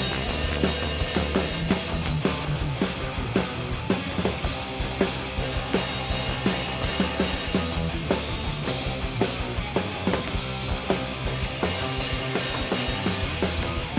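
Rock band playing live: an instrumental passage with a steady, driving drum-kit beat under the full band.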